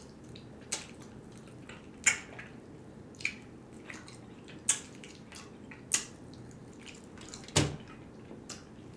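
Close-miked eating: wet smacking clicks of a mouth chewing soft food, about six sharp smacks a second or so apart, one with a duller thud about three quarters through.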